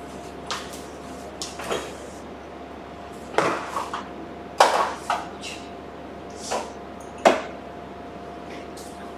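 Kitchen containers and utensils being handled: a series of short knocks and clatters, the sharpest about four and a half and seven seconds in, over a faint steady hum.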